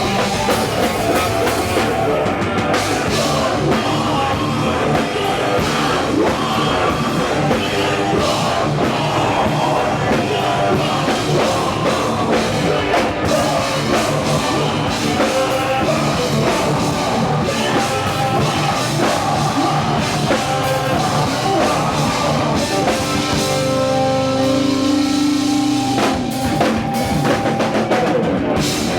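A rock band playing live and loud, driven by a drum kit. Near the end the drum hits thin out under a few held notes before the full band comes back in.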